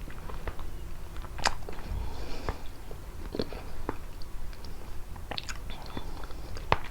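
Close-miked chewing and biting of prickly pear fruit: wet mouth sounds with irregular sharp clicks, a louder one about a second and a half in and a quick cluster near the end.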